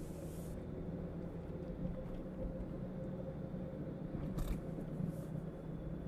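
Steady low hum of the car's engine and running gear heard inside the cabin, with a faint brief hiss near the start and another a little past the middle.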